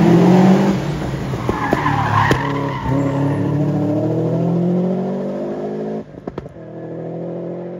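Competition car's engine pulling hard through a bend with its tyres skidding, the note climbing steadily through the revs. About six seconds in the engine drops away suddenly with a few sharp pops, then picks up again at lower revs.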